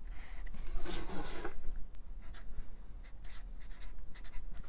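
Felt-tip marker pen drawing a line and then writing a word, in a run of short strokes.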